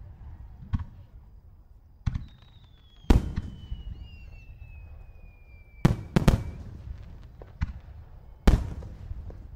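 Aerial firework shells bursting: about six booms at irregular intervals, the loudest about three seconds in and again near the end, with a quick pair just past the middle. A faint thin whistle slowly falls in pitch between the booms.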